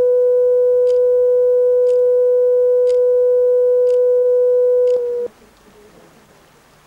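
A loud, steady, mid-pitched electronic tone held without change, with faint ticks about once a second over it. It cuts off abruptly about five seconds in, leaving a faint hiss.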